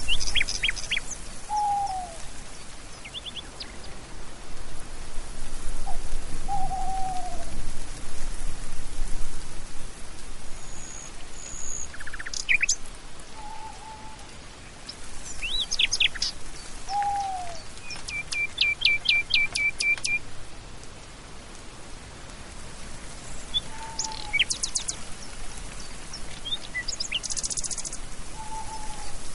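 Several birds calling over a steady faint hiss: short, low, falling whistles repeat every few seconds among scattered high chirps, with a rapid trill about two-thirds of the way through.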